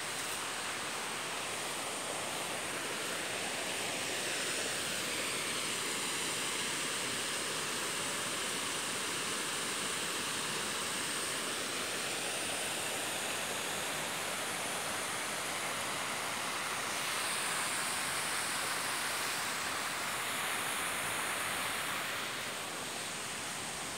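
Steady rushing of a shallow stream flowing past.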